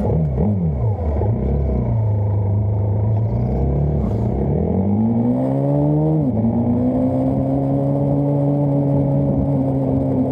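Motorcycle engine pulling away: the revs waver briefly, climb for about two seconds, drop sharply at a gear change about six seconds in, then hold steady.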